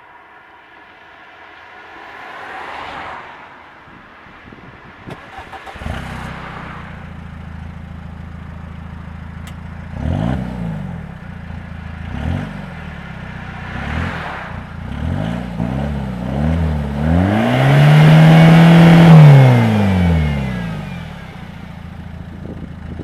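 Peugeot 307 2.0 HDi four-cylinder turbodiesel running through a 3-inch RC Racing exhaust with the catalytic converter removed. The engine note comes in sharply about six seconds in. The engine is then blipped three times, given a quick run of blips, and revved once for about three seconds, the loudest part, before it drops back to idle.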